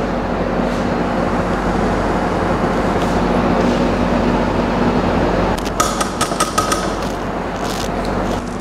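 Steady kitchen background hum, with a quick run of ringing clinks about six seconds in, typical of a scoop tapped against a stainless steel bowl of chocolate glaze.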